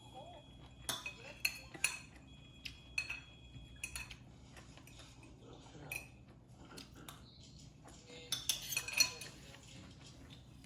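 Metal cutlery clinking and scraping against ceramic dishes: a series of sharp clinks at irregular intervals, some ringing briefly, with a quick cluster of them near the end.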